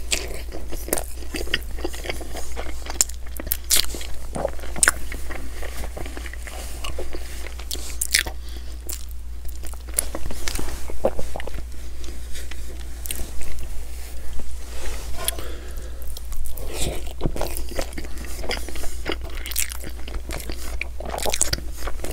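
Close-miked eating of a McDonald's breakfast sandwich: a bite, then steady chewing with many sharp mouth clicks and smacks.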